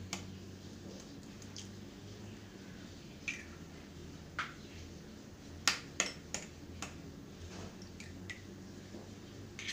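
Two hen's eggs tapped and cracked open on the rim of a glass bowl: a scattering of sharp clicks of shell on glass, several bunched together about halfway through.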